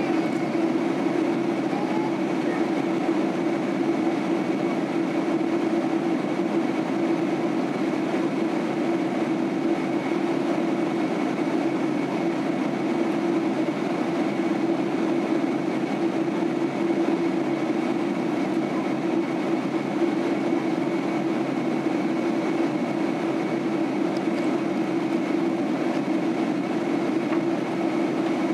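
Steady jet-engine and airflow noise inside the cabin of a Boeing 767-300 airliner in flight: an even low hum with a faint high whine held above it.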